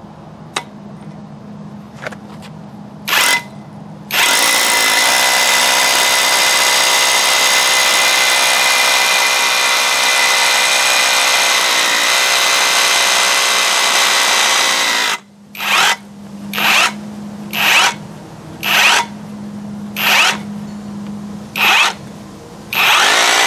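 Cordless hammer drill with a large masonry bit marked 12 boring into a concrete block. After a brief trigger pull it runs steadily for about eleven seconds. The bit then gets stuck in the hole, and the drill is worked in six short bursts about a second apart before running steadily again near the end.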